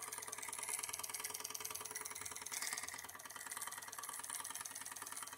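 Bowman M140 twin-cylinder live steam engine running steadily, its exhaust beating in a rapid, even rhythm.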